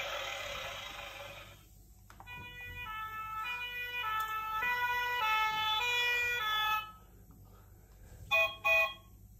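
Electronic sound effects from a children's sound book's small speaker: a sound dies away in the first second and a half, then a short beeping electronic tune plays for about four and a half seconds. Near the end come two short toots, the book's train-whistle "choo choo" button.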